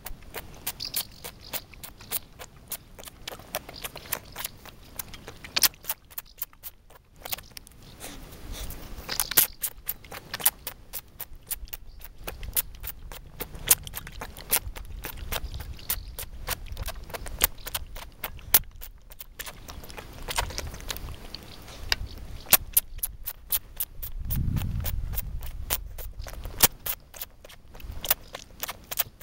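Roe deer fawn suckling goat milk from a plastic feeding bottle: wet sucking and smacking clicks, several a second, with short pauses between runs.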